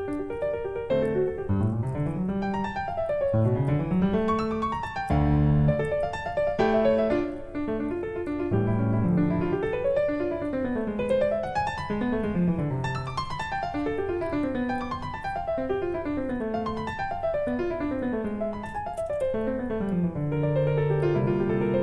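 Background piano music with quick runs of notes climbing and falling.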